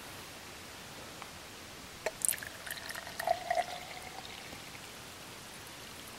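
Coffee poured from a French press into a drinking glass: a sharp click about two seconds in, then a splashing trickle with a ringing note from the glass that fades out after a couple of seconds.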